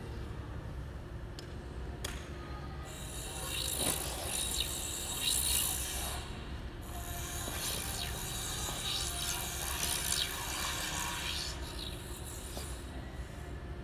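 A figure-skating scribe's point scraping across the ice as its arm is swung round to cut a circle. It makes a rasping scrape in two long passes, about three to six seconds in and again from about eight to twelve seconds.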